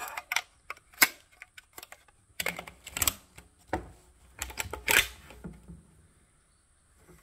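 Sharp clicks and clacks of loading and handling a PTR-91 rifle: a .308 Winchester cartridge thumbed into its polymer magazine, then the magazine and action handled. The clacks come in small groups, the loudest about five seconds in.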